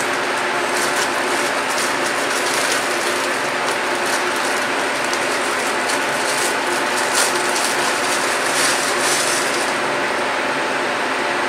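Steady mechanical whirr with fast, high crackling clicks, thickest in the middle.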